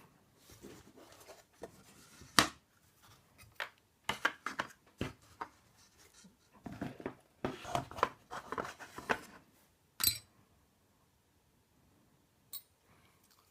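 Light clicks, taps and scrapes of small metal parts being handled as an ABUS C83 padlock is taken apart, its pin springs and pins coming out of the cylinder. The clicks come irregularly for about ten seconds, with a sharper one near the start and another about ten seconds in, then stop.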